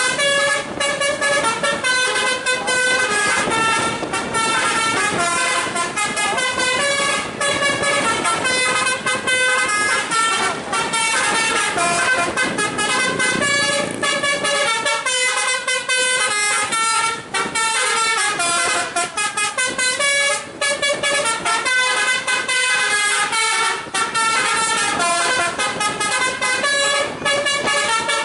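A basuri telolet horn on a tour bus plays a continuous melody, its pitched notes changing several times a second, with a few brief breaks.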